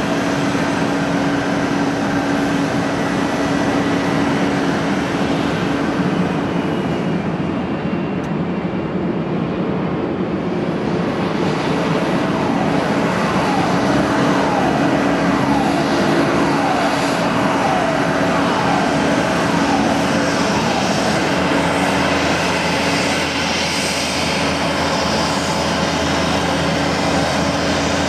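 Jet airliner engine noise played over loudspeakers as a sound effect for a scale-model KLM Boeing 747. It is a steady rushing hum with a held whining tone, and a run of short falling tones partway through.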